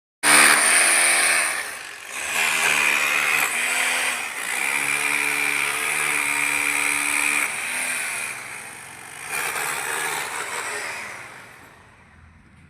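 Handheld electric cutter cutting into a concrete column, with a high whine and gritty hiss. The motor's pitch sags several times as the blade is pressed into the concrete, and it runs down near the end.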